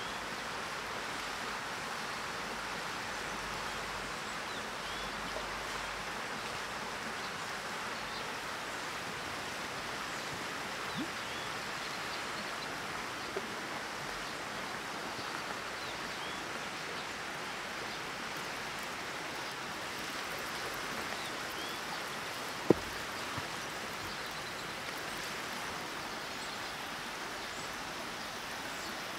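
Steady rushing of a shallow forest stream flowing over stones, with a few faint high chirps. One sharp click comes near the end.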